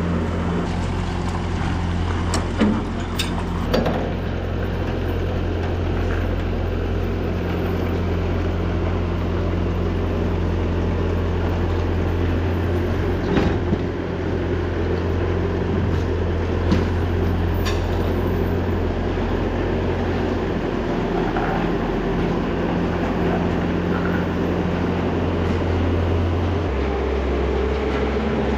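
Bobcat skid-steer loader's diesel engine running steadily while towing a tractor on a chain, with a few short clanks. The engine note drops near the end.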